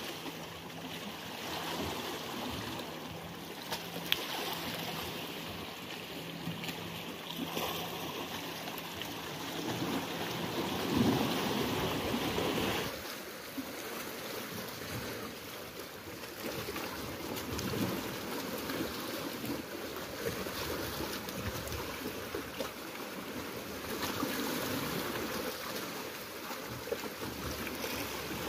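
Sea waves washing and surging against shoreline rocks, a steady rushing that swells and falls, with a faint low hum under it for the first ten seconds or so.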